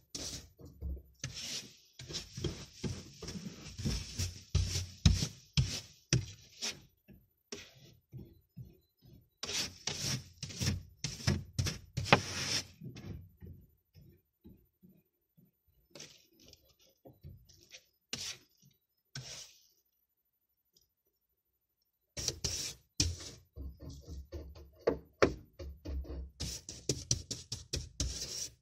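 Snow being cleared off a car windscreen, heard from inside the car: quick scraping and knocking strokes on the glass, in spells with short pauses between them.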